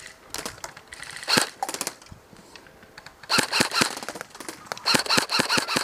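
Airsoft guns firing on automatic in short rapid bursts of about nine shots a second, with single shots between.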